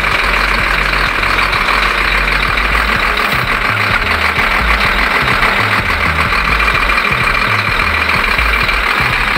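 An SDLG wheel loader's diesel engine idling steadily, loud and close up in the open engine bay.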